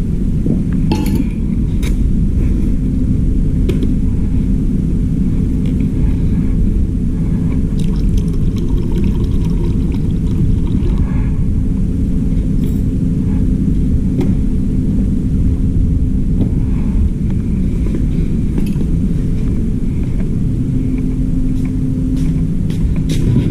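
Steady low mechanical rumble with a faint even hum, broken by occasional light clinks.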